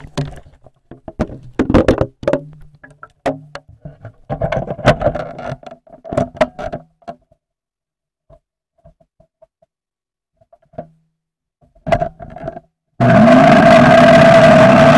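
Knocks and clatter of the blender jar and parts being handled, then a few clicks, and near the end a countertop blender motor switches on, spinning up quickly and running loud and steady with a high whine.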